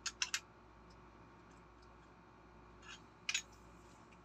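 Small metal parts clicking: a wrench and the spray gun's inline air filter fitting knocking together as they are handled, three quick clicks at the start and two more about three seconds in.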